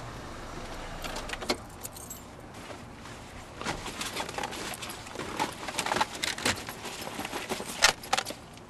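Irregular small metallic clicks and rattles of something being handled by hand, getting busier from about three and a half seconds in, with a sharper click near the end.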